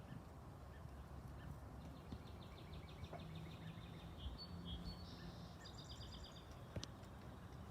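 A small bird trilling faintly: a fast run of short high notes starting about two seconds in, ending in a higher, quicker series, over a low steady background noise. A single click near the end.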